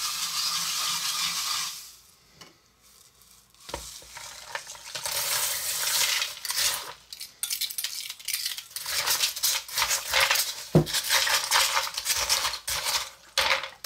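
Ice crackling and hissing in salt-water brine poured over it, for about two seconds. After a short pause, ice cubes clink and clatter as they are packed into the plastic bowl of a hand-cranked toy ice cream maker, with many quick clinks through the rest.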